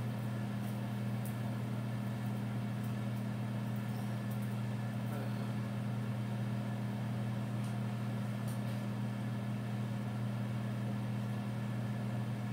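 Over-the-range microwave oven running, a steady low hum with a few faint ticks.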